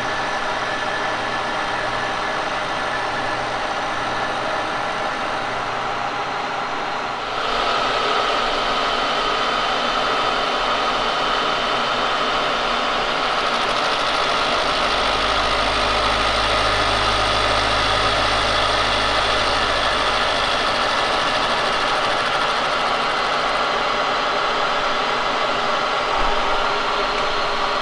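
Kearney & Trecker milling machine running with its cutter milling the side of a cast iron straight edge casting: a steady mechanical hum and whine of the cut. About seven seconds in it jumps louder and brighter, and a low hum joins for a few seconds in the middle.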